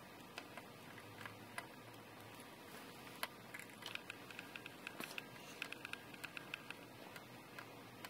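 Soldering iron and solder working the header pins of a small flight-controller circuit board: faint, scattered ticks and crackles in small clusters, over a low steady background.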